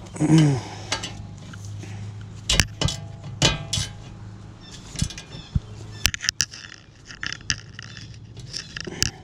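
Irregular metal clinks and knocks of a 7 mm Allen key and tools working on the rear brake caliper bolts, with a short metallic ring a few seconds in, over a steady low hum.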